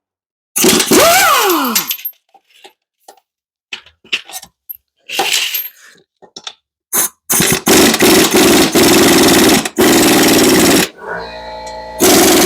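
Air impact wrench on transmission bell housing bolts: a short burst about a second in that falls in pitch as it winds down, a few clinks, then a long rattling run of hammering from about seven seconds in. Near the end an air compressor is running steadily.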